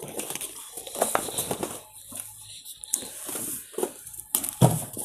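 Packaged T-shirt boxes being handled and moved: irregular light knocks and rustles of cardboard and plastic, with brief faint voices.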